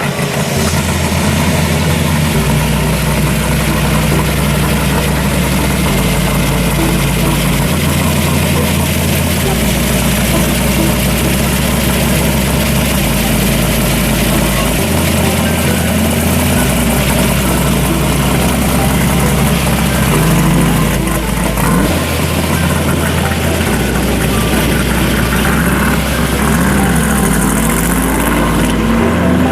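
A car engine running steadily at idle.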